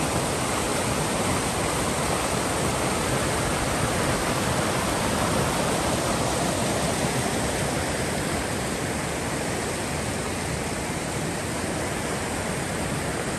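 Steady, even rushing of flowing water, loud throughout and easing slightly toward the end.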